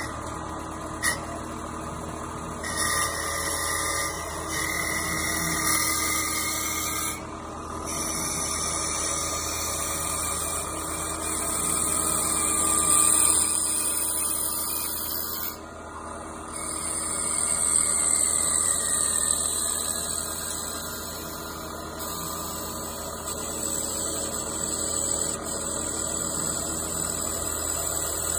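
Automatic CNC wood lathe cutting a spinning wooden chess piece: a steady machine whine with a high-pitched shaving noise from the cutters biting the wood, which swells and eases as the profile is cut and breaks off briefly twice.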